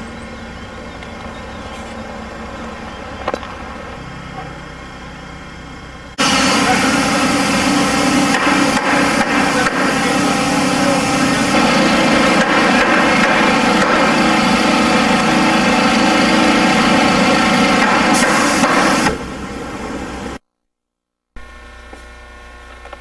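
An engine running steadily, much louder from about six seconds in until near the end, when the sound drops away and cuts out briefly. A faint electrical hum follows.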